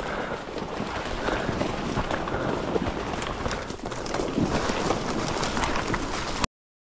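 A person's hurried footsteps on rough ground, a continuous run of scuffing and thudding steps. The sound cuts off abruptly near the end.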